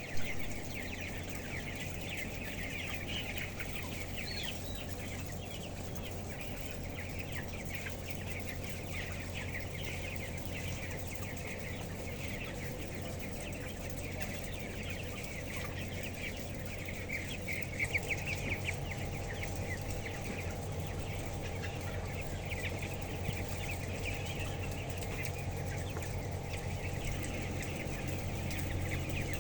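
A flock of broiler chickens calling, many short high peeps overlapping continuously, over a steady low hum.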